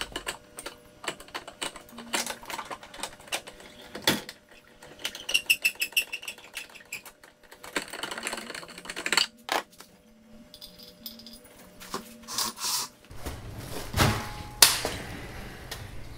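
Rapid metallic clicking and clinking of a spare-tire carrier winch being cranked down with a tire-tool rod through the rear bumper, lowering the spare tire under the truck. A few heavier knocks come near the end.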